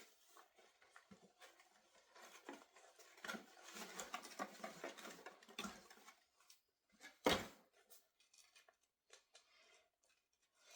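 Hands handling doll-box packaging: faint rustling of cardboard and plastic with scattered small clicks, and one sharper snap about seven seconds in.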